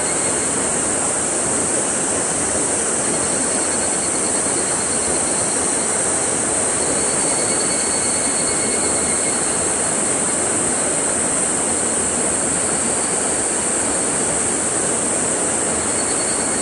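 Steady rushing of water flowing through a rocky stream channel and pouring into a pool, an even hiss with no break or change.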